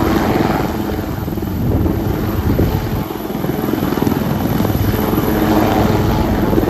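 HAL Dhruv twin-turbine helicopter hovering low over the runway at lift-off, its main rotor beating fast and steadily over the turbine noise.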